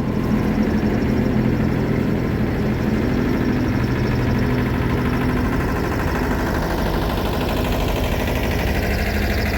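Class 69 diesel-electric locomotive idling at a standstill, a steady low engine hum. Its prime mover is thought to be an EMD 710. The hum's tone shifts slightly about six seconds in.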